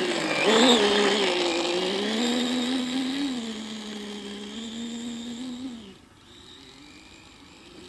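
Whine of a 1/8-scale RC snowmobile's Tekin T8 brushless electric motor and track drive running across snow. The pitch rises briefly about half a second in, then holds steady and fades as the sled moves away, dropping out about six seconds in.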